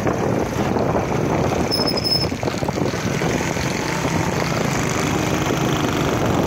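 A vehicle driving along with its engine running steadily.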